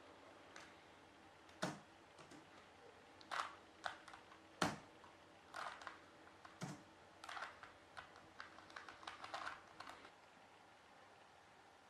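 Plastic Rubik's cube being turned by hand: irregular clicks and clacks of the layers, coming faster in a run of turns towards the end and stopping about ten seconds in.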